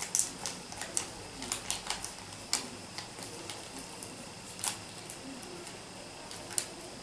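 Irregular light clicks and taps, bunched in the first couple of seconds and then sparse, from a plastic packet and a bowl being handled while jelly premix is opened and added to the crystals.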